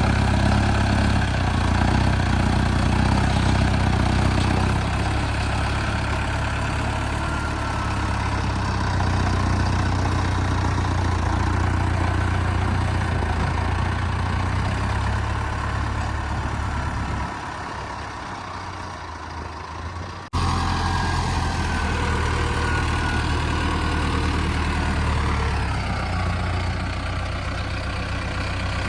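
Heavy engine idling steadily with a low rumble. About 17 seconds in the rumble drops away, and a few seconds later the sound changes abruptly before the engine sound resumes.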